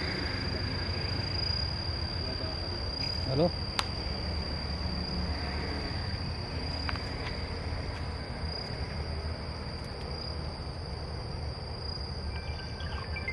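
An insect, cricket or cicada, calling with one steady high-pitched tone that never breaks, over a low rumble.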